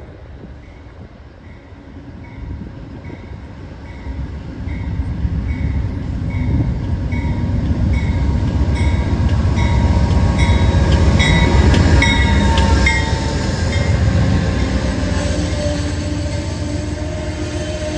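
Amtrak GE P42DC V16 diesel locomotive pulling into the station. A bell rings in an even rhythm as it approaches, and the rumble of its engine and wheels builds to a peak as the locomotive passes close by. Passenger cars then roll past more quietly.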